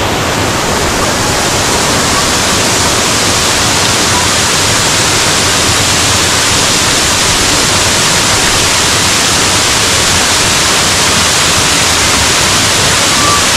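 Waterfall pouring, a loud steady rush of falling water.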